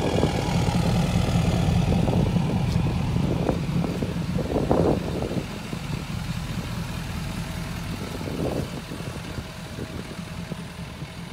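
Ford 6.7-litre Power Stroke turbo-diesel V8 idling with a steady deep rumble, fading gradually through the second half.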